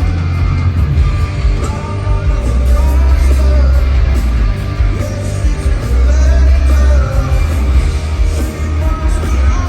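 Live rock band playing loud in a large hall, with a lead vocal singing over heavy bass and drums.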